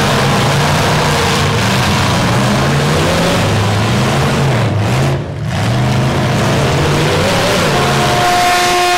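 Demolition derby pickup trucks' engines revving and running hard, their pitch rising and falling, with a brief drop in level about five seconds in. Near the end a steady high tone comes in over them.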